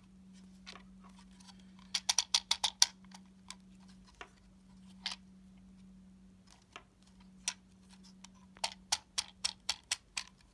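Lego puzzle box being tilted and handled, its plastic bricks and internal pins clicking and rattling in quick runs, one about two seconds in and another near the end. A faint steady hum lies underneath.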